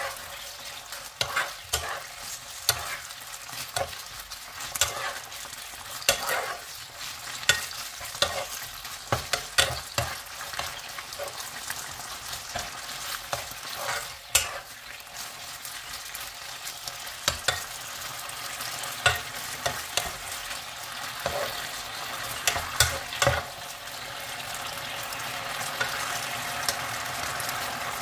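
Diced chicken breast sizzling in oil in a nonstick frying pan, with frequent knocks and scrapes of a plastic spatula against the pan as the pieces are stirred and turned. The sizzle grows louder and steadier over the last few seconds.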